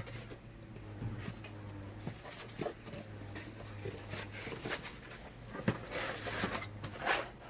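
Light rustles and knocks of packaged food ration items being handled, over a low steady hum.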